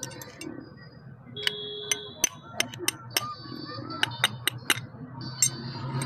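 Steel hand tool clicking and clinking against a motorcycle disc brake caliper: about a dozen sharp metal-on-metal taps, several with a brief ringing tone, starting about a second and a half in.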